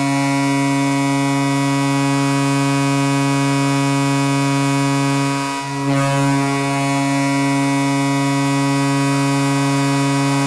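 Hockey arena goal horn blowing a loud, steady, deep blast, broken briefly about five and a half seconds in and then sounding on.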